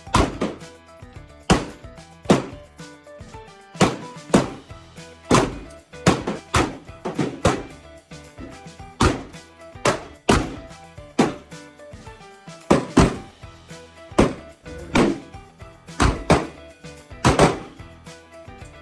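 Handgun firing at an indoor range: about twenty sharp, irregularly spaced shots, each with a short echo off the room. Funk background music plays underneath.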